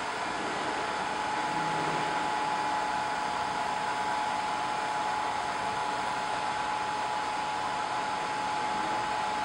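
WDS-650 BGA rework station's hot-air heaters and fans blowing steadily while heating a chip on a motherboard, with a steady whine over the air noise.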